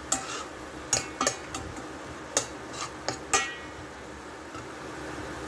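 Metal spoon clinking and scraping against a stainless steel pan while stirring a simmering sauce: a series of sharp clinks over the first three and a half seconds, then a steady hiss.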